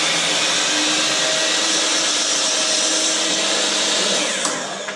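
Electric miter saw running and cutting through a wooden board at a 45-degree angle; near the end the trigger is released and the motor winds down with a falling whine.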